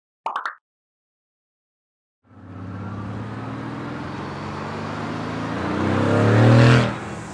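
Mercedes-AMG GT S 4.0-litre twin-turbo V8 accelerating on the throttle, its engine note growing louder and rising in pitch, then dropping away abruptly near the end. A short sound effect with the logo comes right at the start.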